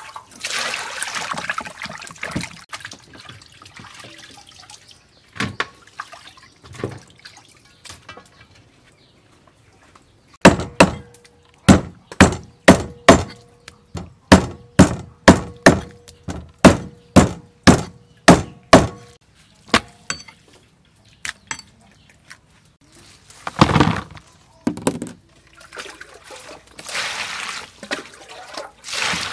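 Water splashing as cow leg pieces are washed, then about twenty sharp cleaver chops through cow leg on a wooden chopping block, roughly two a second, and more water splashing near the end as vegetables are washed in a plastic basin.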